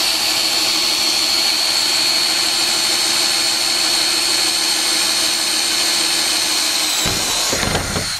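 Cordless drill running continuously with a steady high whine as it bores pilot holes through the van's sheet-metal roof. The motor winds down near the end, with a few knocks.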